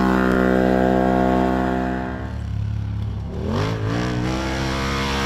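Can-Am side-by-side (SSV) rally buggy's engine running hard at steady revs, easing off a little past halfway, then revving sharply back up as it accelerates.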